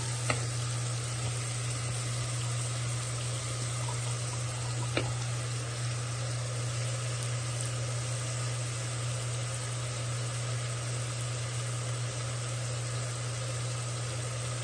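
Chopped red onions sizzling steadily in hot oil in an Instant Pot's inner steel pot on sauté mode, over a constant low hum. A light tap sounds about five seconds in.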